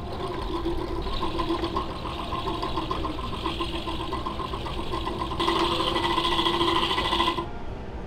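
Electric fishing-line spooling machine running, winding line onto a reel with a steady motor whine. It gets louder about five seconds in, then stops suddenly near the end.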